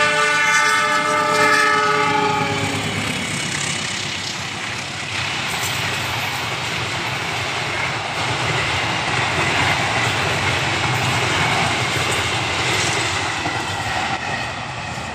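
Passenger train locomotive's multi-tone horn sounded for about three seconds as the KA Argo Semeru express passes, followed by the steady loud rush and wheel clatter of its coaches going by close to the track.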